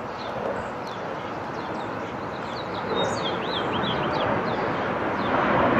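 F/A-18 Hornet fighter jet's twin jet engines passing overhead, a steady rushing noise that grows louder toward the end as the jet comes nearer. A small bird chirps a few times about halfway through.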